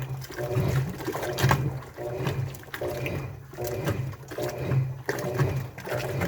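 Washing machine in its wash cycle: the drum turning with water sloshing through the load, the motor hum and the splashing swelling about once a second.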